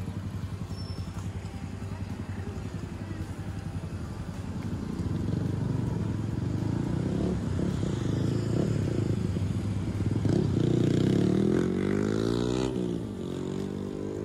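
Road traffic: a steady low engine hum, with a motor vehicle passing close by. It grows louder from about five seconds in and is loudest around eleven seconds in, its engine pitch sweeping as it goes past, then fades.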